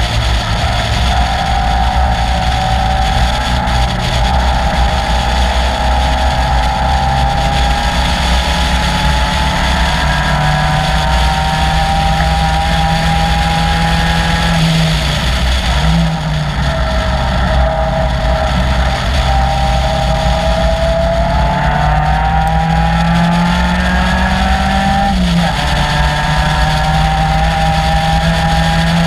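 Caterham Seven's 2.3-litre Ford Duratec four-cylinder running hard on track, its note climbing slowly, breaking off briefly about halfway, climbing again and dropping suddenly near the end, as at an upshift. Heavy wind rumble in the open cockpit runs beneath it.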